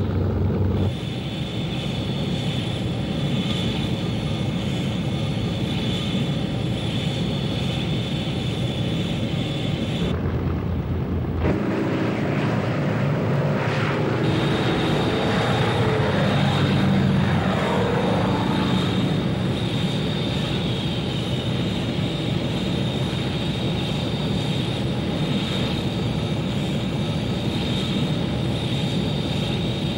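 Military aircraft engines running on an aircraft carrier's flight deck: a steady high whine over a continuous rumble. The sound changes about ten seconds in, and around the middle an aircraft goes past with its pitch sliding.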